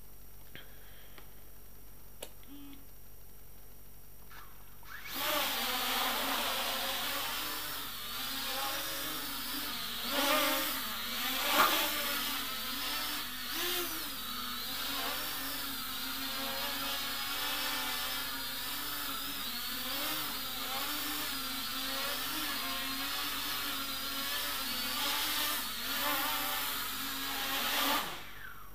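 XK X251 quadcopter's motors and propellers spinning up suddenly about five seconds in, then buzzing in flight with a wavering pitch that rises and falls as the throttle changes. It swells louder a few times around the middle and cuts off abruptly near the end as the motors stop.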